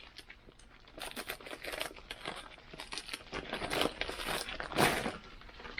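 Packaging crinkling and rustling in irregular bursts as a new abrasive fiber wheel is handled, with a louder crackle near the end.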